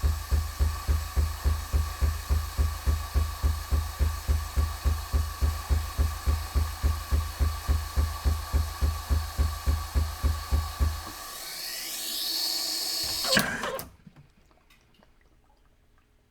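Terra Kaffe TK-02 coffee machine brewing: its pump pulses evenly and rapidly with a steady hum above it. About eleven seconds in the pulsing stops and a motor whine rises in pitch and ends in a sharp clunk, after which the machine falls quiet.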